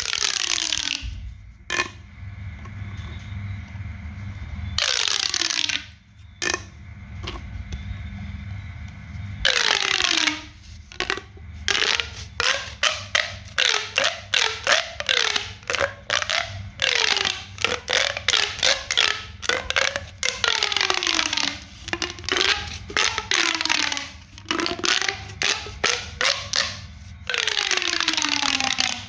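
Homemade pop toy being popped over and over: sharp pops and crunches, each trailing off in a falling pitch. A few come spaced out, then they come fast, two or three a second, for most of the second half.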